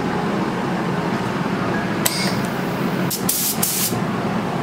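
Gravity-feed paint spray gun on a compressed-air line, triggered in two short hissing blasts of air and paint about three seconds in, the start of the second coat, after a sharp click about two seconds in. A steady low hum runs underneath.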